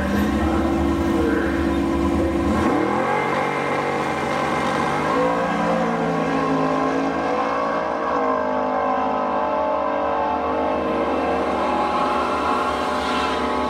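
V8 engines of a Ford Mustang GT and a Chevrolet Camaro ZL1 held at raised revs at the drag-strip start line, the pitch dropping once and then climbing in steps. The revs rise near the end as the launch approaches.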